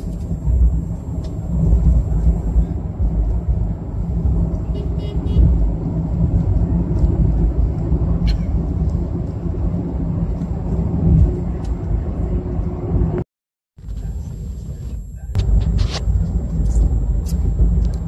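Car cabin noise while driving: the engine and the tyres on the road make a steady low rumble. The sound drops out for a moment near the end, then resumes.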